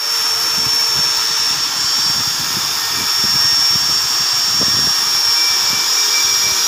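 Handheld electric die grinder with a small carving bit cutting into white Makrana marble: a steady high-pitched motor whine over the gritty hiss of the bit grinding the stone.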